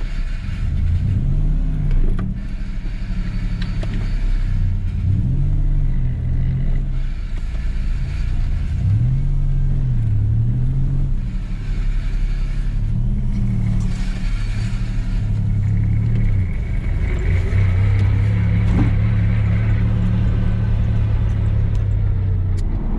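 Turbocharged Holden VR Commodore's Buick 3.8-litre V6 driving, its note rising and falling about four times as it accelerates and shifts, then holding steady at a cruise for the last several seconds. No exhaust tick: the new manifolds are leak free.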